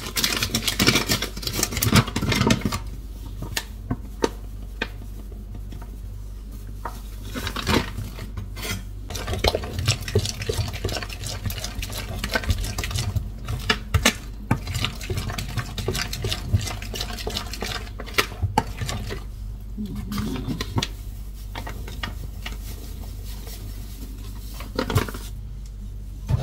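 Flour poured from a bag into a plastic mixing bowl, then a metal utensil stirring it into a wet dough, with irregular clicking and scraping against the sides of the bowl.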